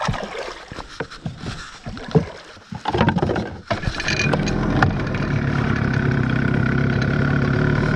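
15 hp tiller outboard motor pull-started: a few knocks and clicks, then it catches about three seconds in and runs steadily.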